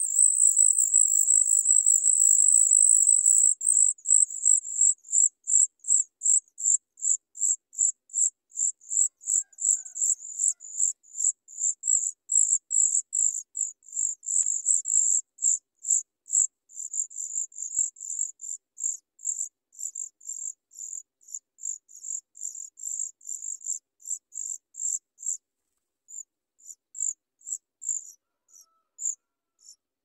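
Chat nestlings begging for food with thin, very high-pitched calls: one unbroken call for the first few seconds, then rapid short notes, two or three a second, that grow sparser and patchier near the end.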